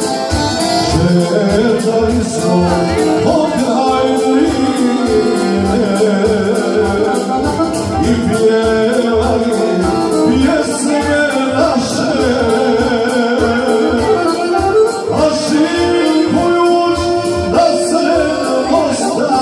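A man sings live into a microphone over an electronic keyboard accompaniment with a steady programmed beat. His long held notes waver in pitch.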